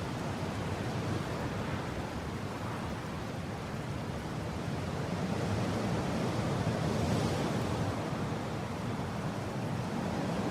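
Strong mountain wind blowing steadily, a deep rushing that swells into a brighter gust about two-thirds of the way through.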